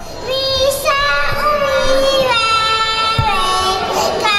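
A young girl singing into a microphone, amplified through a PA loudspeaker, holding long steady notes.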